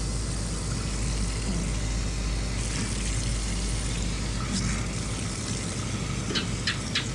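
Steady background hiss with a low hum, then near the end a gecko starts chirping: a quick series of sharp clicks, about four a second.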